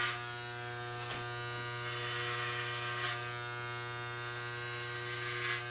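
Corded Wahl electric hair clippers running with a steady buzz while cutting short hair at the back of a man's head.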